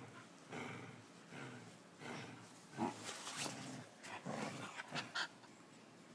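Dogs play-growling and grunting in short, irregular bursts while they wrestle, one of them an Australian cattle dog.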